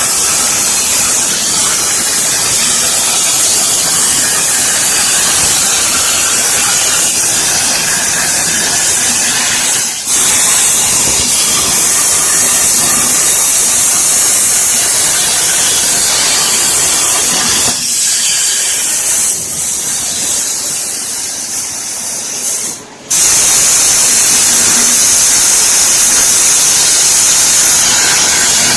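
CNC plasma torch cutting steel plate: a loud, steady hissing roar of the plasma arc. It drops out briefly once, about three-quarters of the way through.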